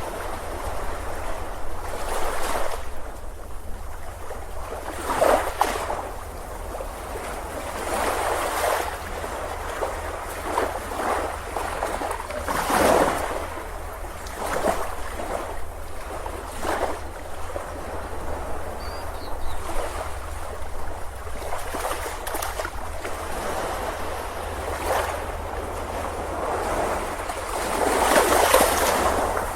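Ocean surf on a beach: waves breaking and washing in, swelling every couple of seconds over a steady low rumble, with the biggest wave near the end.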